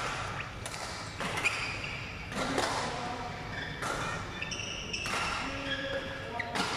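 Badminton court sounds echoing in a large hall: irregular sharp racket-on-shuttlecock hits from nearby courts, mixed with short high squeaks of sports shoes on the court floor.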